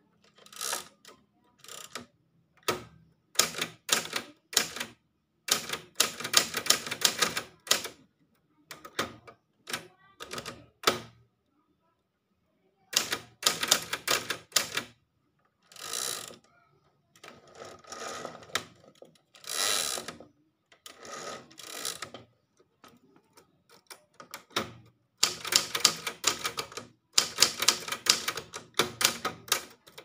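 Keys of a Singer Companion 1000 manual typewriter clacking in quick runs of strokes with short pauses between them. A carriage return comes about halfway through.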